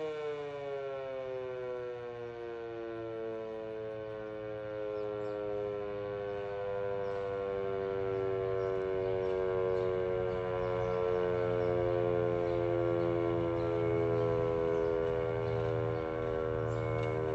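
Sentry electromechanical outdoor warning siren, which the uploader takes for a 3V8-H, sounding a chord of several tones. Its pitch glides slowly lower and levels off into a steady low tone, growing a little louder.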